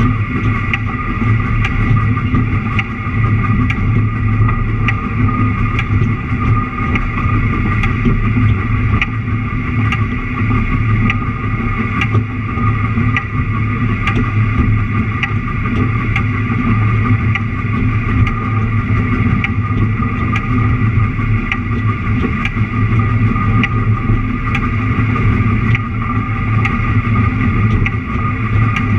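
Narrow-gauge train running along the track, heard from the cab: a steady engine and running drone with sharp wheel clicks about once a second.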